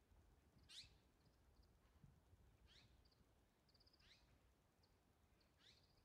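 Faint calls of azure-winged magpies: four quick sweeping calls spaced roughly a second and a half apart, with a brief rapid run of short notes near the middle, over a low background rumble.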